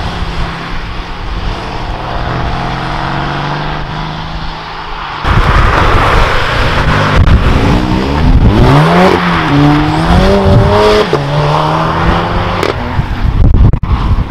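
Cars pulling away one after another. First a steady engine note from a car driving off. After a sudden cut about five seconds in, the Audi TT's engine revs as it drives past, its pitch rising and falling several times.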